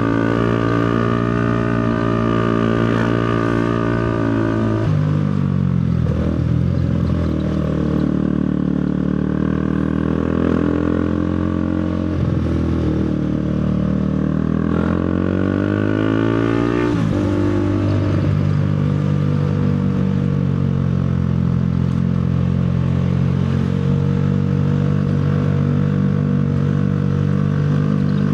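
Motorcycle engine running under way. Its speed holds steady, then drops and climbs again a few times in the middle stretch before settling steady again.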